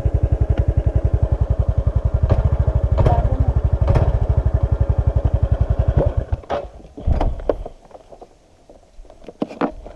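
Motorcycle engine idling with an even, rapid pulse, then shut off about six seconds in, with a last brief burst. Afterwards a few scattered clicks and knocks.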